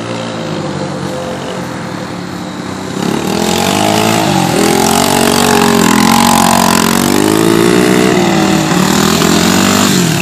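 Children's small dirt bikes revving close by, the engine pitch repeatedly rising and falling as they circle and spin through the mud. The engines are fainter and more distant for the first three seconds, then get much louder as a bike comes near.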